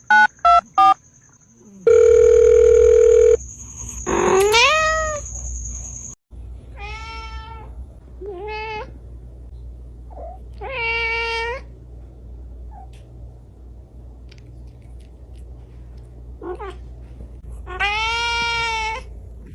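A cat meowing repeatedly: about five separate meows, the longest about a second long, one of them near the end. In the first few seconds there is a quick run of electronic beeps, then a steady electronic tone and a rising yowl.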